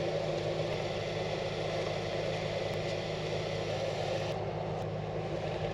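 A vehicle engine idling steadily, a low even hum with hiss above it; the hiss fades about four seconds in while the hum carries on.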